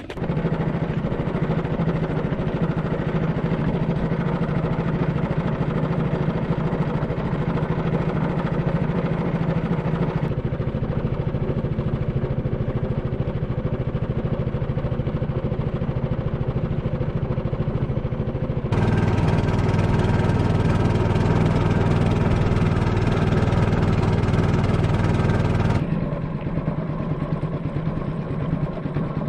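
A small wooden fishing boat's engine running steadily under way, a loud, even drone that changes in tone abruptly three times.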